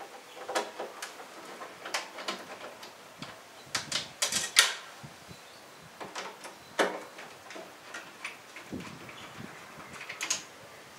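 Scattered clicks and short scrapes of hand tools and plastic parts as the screws holding a Jeep Grand Cherokee tail light are undone, with a cluster of louder clicks about four seconds in.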